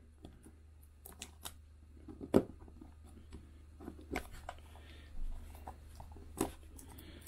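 Cellophane wrapper on a new cassette case being torn open along its tear strip and peeled off: scattered crinkles and sharp clicks of thin plastic film, the sharpest about two and a half seconds in.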